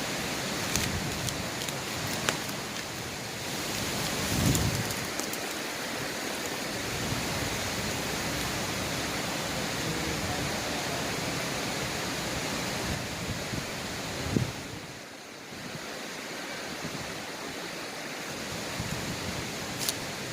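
Steady rushing of a small river's flowing water, with a few scattered clicks and knocks.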